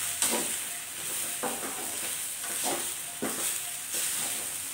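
Coriander leaves, coconut and tomato sizzling in oil in a steel kadai while a spatula stirs them, scraping the pan in about four strokes. This is the quick sauté of the coriander leaves for chutney.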